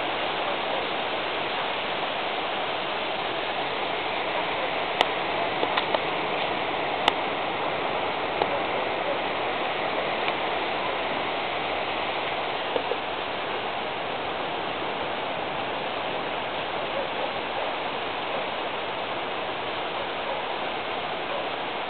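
Steady rain falling, an even hiss, with a few sharp ticks about five and seven seconds in.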